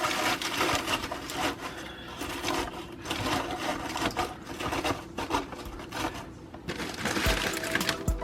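Fresh spinach leaves being handled and pushed into a blender jar: irregular rustling and crinkling, with a few low thuds near the end.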